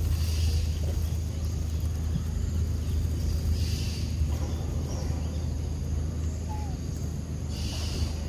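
Outdoor ambience: a steady low rumble, with a brief hissing rustle every few seconds and one faint short chirp about two-thirds of the way in.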